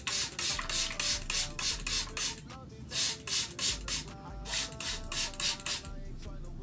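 Hand-held spray bottle of water and conditioner spritzing onto a curly wig in quick repeated squirts, about four a second, in runs with short pauses, stopping about six seconds in. Background music plays underneath.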